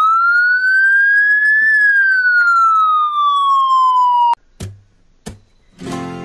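A siren's single wail, rising for under two seconds and then falling, cut off abruptly after about four seconds. Two short knocks follow, and music begins near the end.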